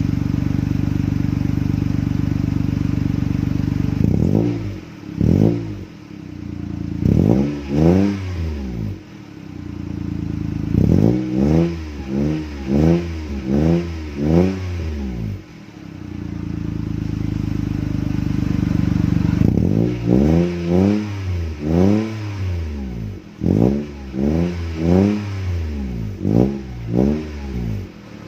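Toyota Wigo's exhaust through an HKS small-can muffler: the engine idles steadily, then is blipped in quick free revs. The revs come in three runs, a few around five to nine seconds in, a fast string of about five in the middle, and another string near the end, each dropping back to idle.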